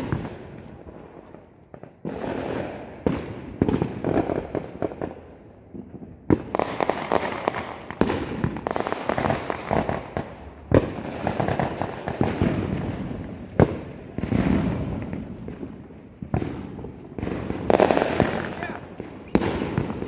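Firecrackers and fireworks going off all around: a near-continuous crackle of many bangs, with louder sharp bangs every two or three seconds.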